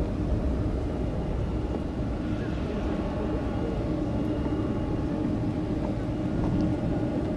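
Boeing 747-400 Dreamlifter's four turbofan engines running at taxi power: a steady low rumble with a faint even hum over it.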